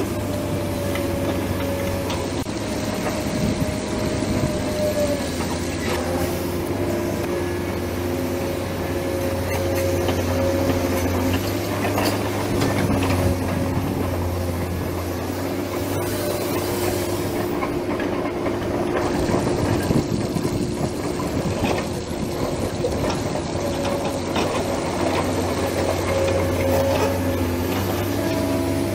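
Remote-control model excavator running while it digs and loads soil: a steady motor drone whose pitch shifts a few times as it works, with short scrapes and clicks of dirt.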